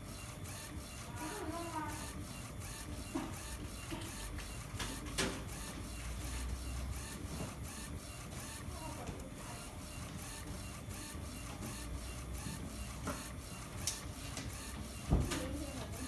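Focus UV flatbed inkjet printer printing, its print head carriage shuttling back and forth in a steady mechanical run with a regular tick about twice a second.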